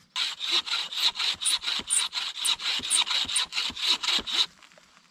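Hand saw cutting through dead softwood with quick, even back-and-forth strokes, about four to five a second, stopping near the end.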